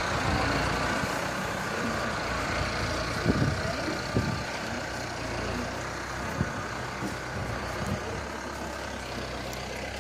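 An engine running steadily with a low hum under outdoor background noise, with a couple of short knocks a few seconds in.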